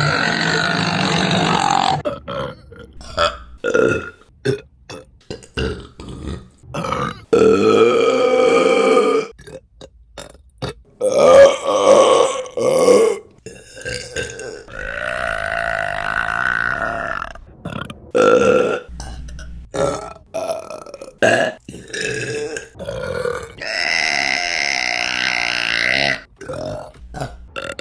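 A string of women's burps, one after another, some long and drawn out with a clear pitch lasting two seconds or more, others short.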